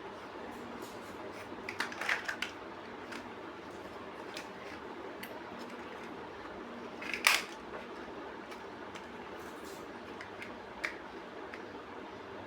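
Plastic building bricks being handled and snapped together: scattered small clicks, a quick cluster about two seconds in and the sharpest click about seven seconds in, over a steady faint hiss.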